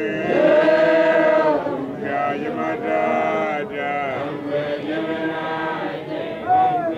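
Basotho initiation graduates chanting together as a group of male voices in unison, long held notes that swell and fall in pitch.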